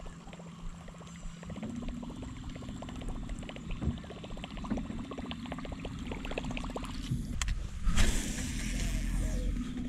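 Boat's electric trolling motor humming, cutting out briefly and coming back on. Over it runs the rapid ticking of a baitcasting reel being wound in, and a whoosh of the rod being cast about eight seconds in.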